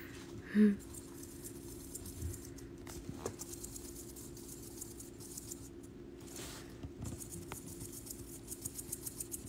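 Djungarian hamster moving about in paper and wood-shaving bedding: faint rustling and small light taps, coming more often near the end, over a steady low hum. A brief short voice sound comes about half a second in.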